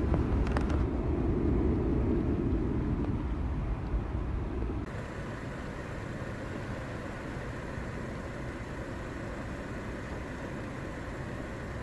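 Low rumble of an American Airlines jet's engines as it climbs away after takeoff, fading, then cut off suddenly about five seconds in by a steady hiss of rain falling on the sea.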